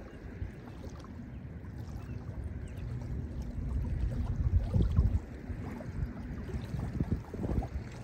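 Small lake waves lapping onto a sandy shore, washing in and out in uneven surges, the strongest about five seconds in.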